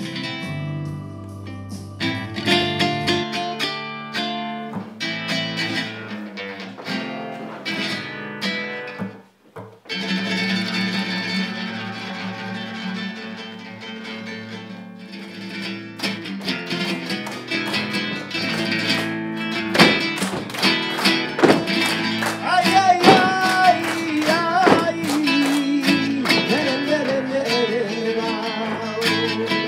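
Live flamenco: a Spanish guitar plays with a male singer's cante. From about halfway in, sharp rhythmic palmas (handclaps) from a group of dancers join in, keeping the compás.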